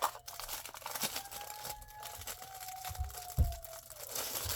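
Packaging being handled and torn open: crinkling and tearing with many small crackles, and a low thump about three and a half seconds in.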